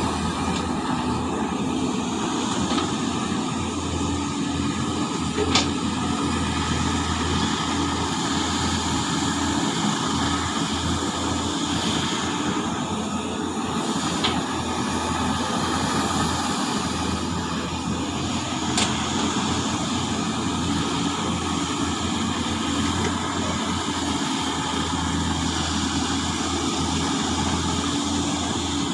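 Large excavator's diesel engine running steadily under load, a constant low drone, with three short sharp metallic knocks spread through it.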